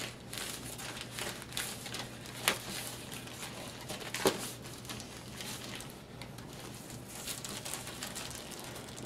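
Thin plastic mailer bag being torn open and peeled off a cardboard box, crinkling and rustling unevenly, with two sharp clicks about two and a half and four seconds in.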